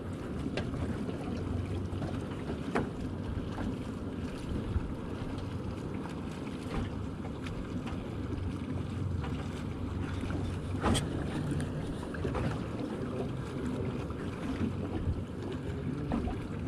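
A boat's engine idling with a steady low hum, and wind buffeting the microphone. A few small knocks or clicks stand out, the sharpest about eleven seconds in.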